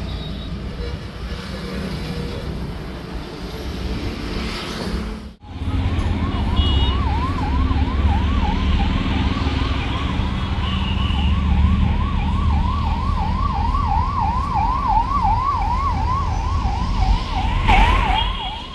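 Traffic noise, then about five seconds in a siren starts sounding a fast yelp, about three rising-and-falling sweeps a second, over the low rumble of road traffic.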